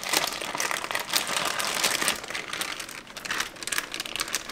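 Plastic zip-lock freezer bag crinkling and crackling irregularly as it is squeezed and scraped with a spatula to push the mash out.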